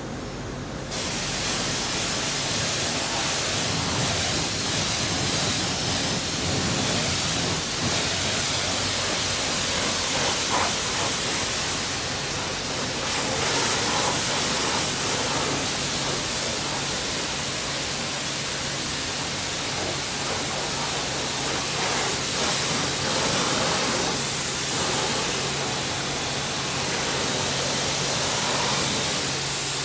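High-pressure rinse spray from a D&S self-serve car wash wand hitting a car's body and washing off the foam: a steady loud hiss of water that starts abruptly about a second in, over a faint steady low hum.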